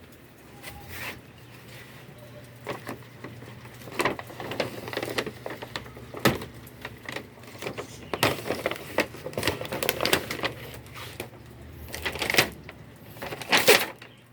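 Irregular clicks, knocks and rustles of something being handled, over a steady low hum.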